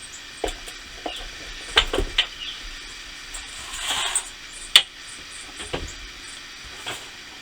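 Boxed items being handled and set down on a table: scattered knocks and clicks, with a brief rustle about four seconds in and a sharp click just after.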